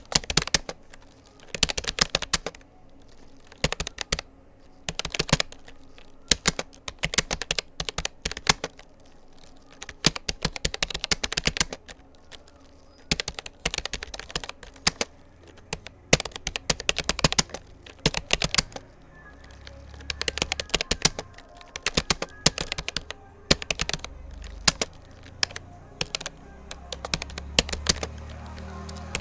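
Rapoo computer keyboard keys clicking rapidly under touch typing, in runs of keystrokes broken by short pauses. A low background music bed comes in during the second half and grows toward the end.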